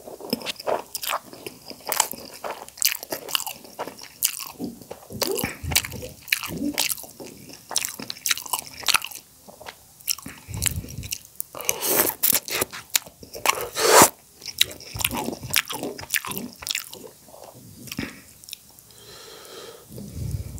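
Close-miked eating of instant noodles in soup: wet slurping and chewing with many irregular smacks and clicks. The loudest, longest slurps come about twelve and fourteen seconds in.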